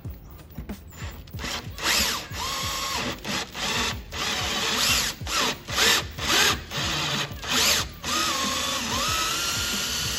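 Cordless drill with a number 3 bit boring into the end of a tube held in a flaring-tool block. The drill runs in a string of short trigger bursts, then settles into a longer steady run near the end, its motor pitch rising and falling with speed.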